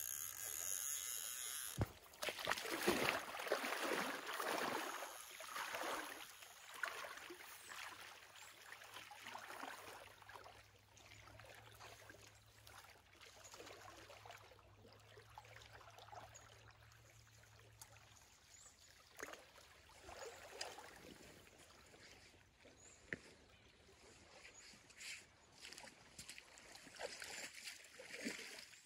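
Shallow river water trickling and splashing, louder in the first few seconds, with a few scattered clicks.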